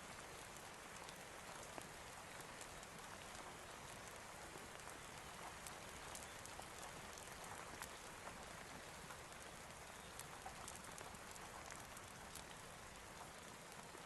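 Steady, faint rain: an even hiss sprinkled with many small scattered ticks.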